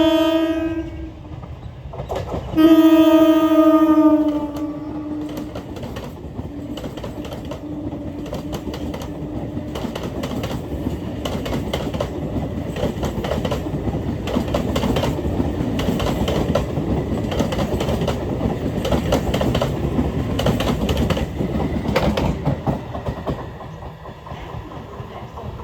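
Electric train's horn: one blast ends about a second in, then a louder blast follows and trails off slightly lower in pitch. The train then runs past, its wheels clattering over the rail joints in a fast clickety-clack that swells and fades near the end.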